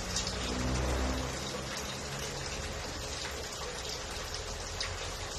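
Aquarium filter's water running steadily, a continuous splashing hiss.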